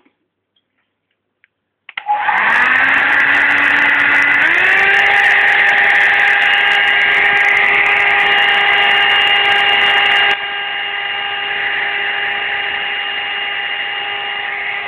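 Electric hair dryer switched on about two seconds in, its motor whine stepping up to a higher speed a couple of seconds later. It then runs steadily, a little quieter for the last few seconds, and switches off.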